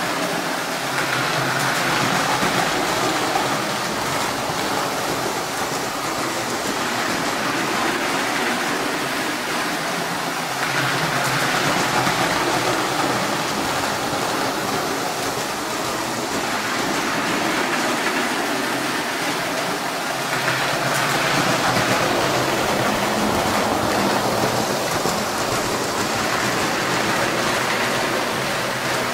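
Lionel postwar O-gauge toy train running on three-rail tinplate track: a steady rumbling whir of wheels and motor that swells louder about every ten seconds as the train comes round close by.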